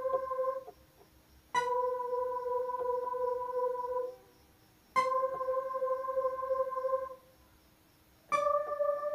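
Electronic keyboard playing single sustained notes one key at a time, slowly, as a solo phrase is demonstrated key by key. One note ends shortly in, then three more follow, each held steady for two to three seconds and cut off cleanly, with short silences between. The last note is slightly higher.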